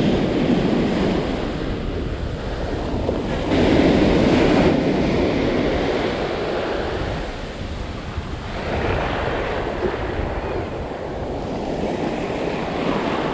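Ocean surf breaking and washing up a sandy beach, with wind noise on the microphone. The wash surges louder about three and a half seconds in and again around nine seconds.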